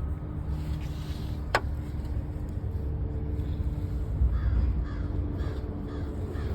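A bird calling several times in a short run in the second half, over a steady low rumble, with one sharp click about a second and a half in.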